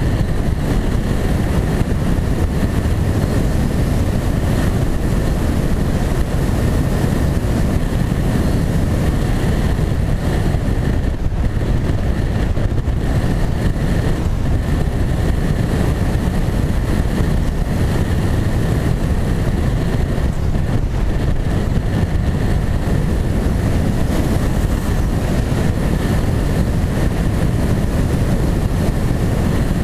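Wing-X EPP flying-wing model plane in flight, heard from its onboard camera: wind rushing over the microphone, with a steady, even whine from the motor and propeller.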